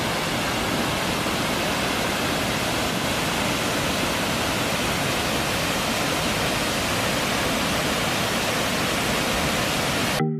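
Water from Peechi Dam's spillway pouring down the sloping stone face of the dam, a steady, even rush of noise that cuts off suddenly near the end.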